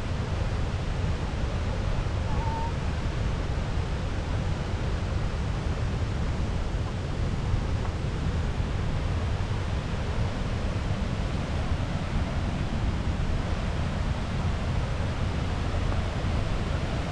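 Steady roar of the Stuibenfall waterfall, water crashing down without letup.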